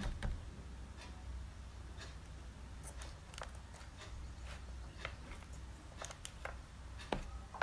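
Faint scattered taps and clicks, about nine of them, over a low steady hum: a finger tapping a tablet's touchscreen while navigating.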